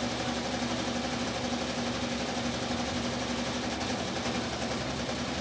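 Washing machine running with a steady, loud mechanical hum and fast churning rattle, noisy enough to be likened to a cement mixer.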